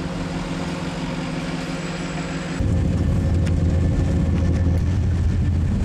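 Steady running rumble of a moving passenger train heard from inside the carriage. The low rumble grows louder about two and a half seconds in.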